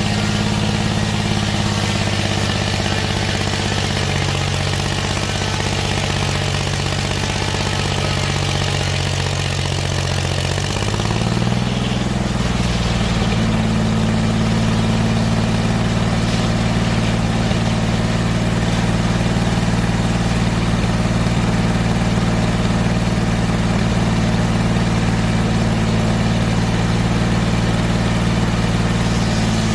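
V6 engine running steadily. Its pitch rises a little about eleven seconds in and then holds at the higher speed.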